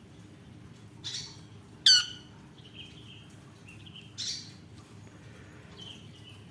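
Lovebird giving short, shrill squawks: three louder calls, the loudest about two seconds in, with softer chirps between them.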